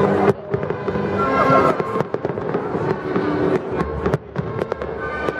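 Fireworks going off: a rapid, irregular series of sharp bangs and crackles.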